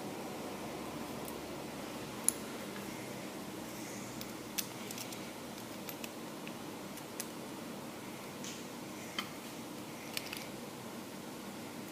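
A few sharp, scattered clicks and small handling noises, likely the Beyblade and its packaging being handled, over a steady fan-like room hum.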